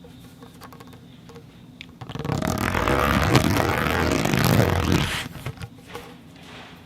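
A rough, grainy scraping rattle starts about two seconds in and lasts about three seconds, made with a conduit-and-ball sound-effect setup.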